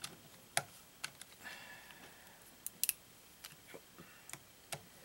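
Hex driver turning a small screw into a Traxxas Rustler 4x4 RC truck's chassis: scattered light clicks and ticks, a few a second and irregular.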